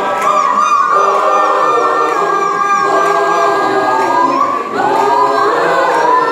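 School choir singing a cappella, with notes held and wavering, and voices sliding upward a few times in the second half.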